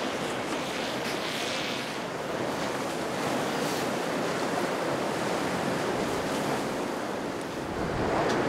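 Ocean waves and surf rushing steadily, with wind on the microphone, growing a little louder near the end.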